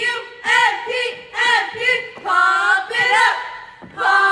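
A small group of girls shouting a cheer together in a steady rhythm, one syllable about every half second: "Pump, pump, pump it up, pump that DePue spirit up, P-U, M-P, pump it up."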